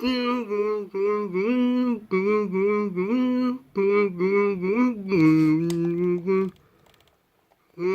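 A voice humming a short wordless tune in phrases with brief breaks. It stops about six and a half seconds in.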